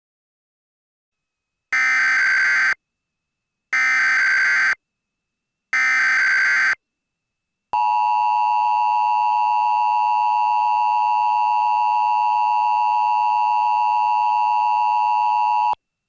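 Emergency Alert System header: three bursts of shrill digital SAME data tones, each about a second long and a second apart, then the steady two-tone EAS attention signal held for about eight seconds and cut off suddenly. It is the opening of an emergency alert broadcast, here a tsunami warning.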